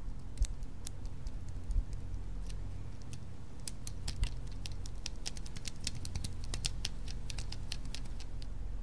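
Pen writing on a lined notepad on a wooden desk: a run of quick, irregular small clicks and scratches, thickest in the second half, with a few soft knocks in the first half. A steady low room hum runs underneath.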